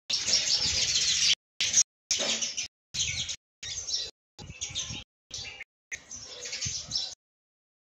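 A group of house sparrows chirping busily, many overlapping chirps. The chirping comes in stretches broken by abrupt silent gaps and stops about seven seconds in.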